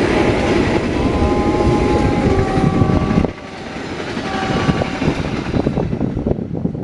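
Passenger train coaches rushing past at speed: a loud, dense rumble of steel wheels on the rails, with some steady whining tones over it. The noise drops sharply a little over three seconds in, then builds again as more coaches pass.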